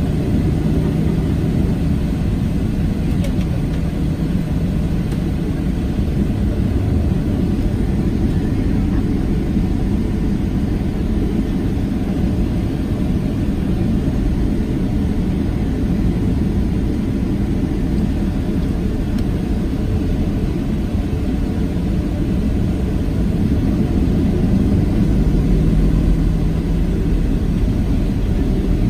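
Steady low rumble inside the cabin of a Boeing 737-700, its CFM56-7 engines running at low power before the takeoff roll, with a faint steady hum coming and going.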